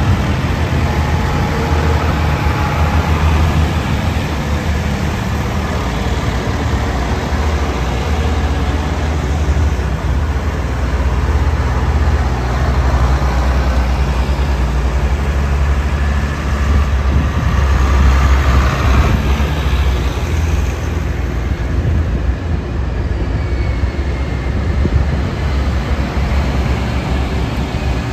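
Farm tractors' engines running as the tractors drive past one after another: a steady, deep, low rumble that swells loudest about two-thirds of the way through as a big machine goes by close.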